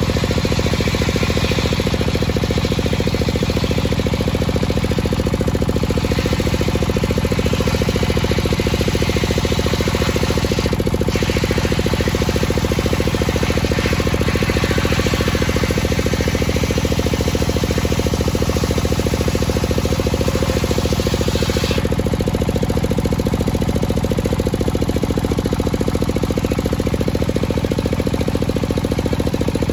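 Homemade circular saw running steadily while its blade rips lengthwise through a dry, dense teak beam: a constant low machine drone under a rough cutting hiss that lessens about two-thirds of the way through.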